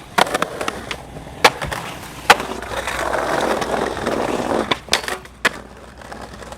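Skateboard wheels rolling on pavement, broken by several sharp clacks of the board hitting the ground, the loudest a little past two seconds in.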